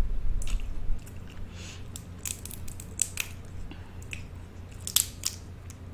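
Close-miked eating: wet chewing and mouth smacks with sharp clicks, clustered a little after two seconds in, around three seconds and again around five seconds.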